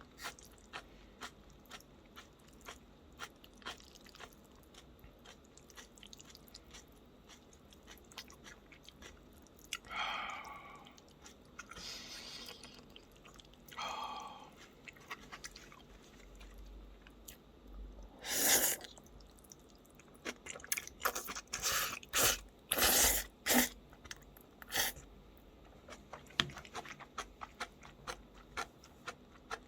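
A person chewing food close to the microphone, with wet mouth clicks throughout and a run of louder crunchy bites about two-thirds of the way in.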